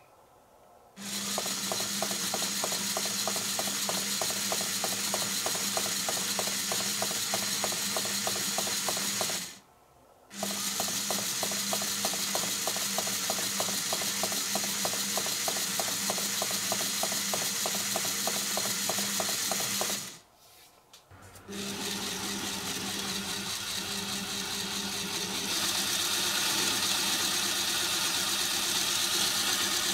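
Small Lego Technic electric motor driving plastic gears and cams in a Lego gripper: a steady hum with fast, even gear ticking, stopping briefly twice. After the second stop a different motor-driven Lego mechanism runs, a smoother steady whirr without the ticking, a little louder near the end.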